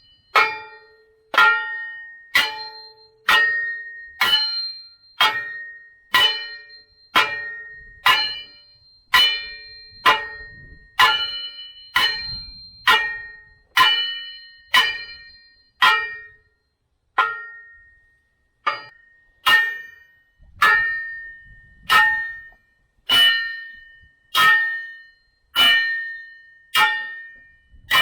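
Repeated hammer blows on steel, about one a second, each leaving a ringing tone that dies away before the next.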